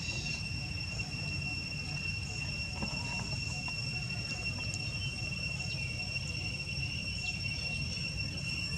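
Steady high-pitched insect drone, one unbroken tone throughout, over a constant low rumble.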